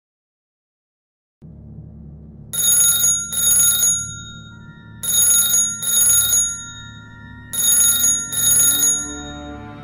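A telephone ringing in double rings, one pair of rings about every two and a half seconds, over a low music drone that starts about a second and a half in.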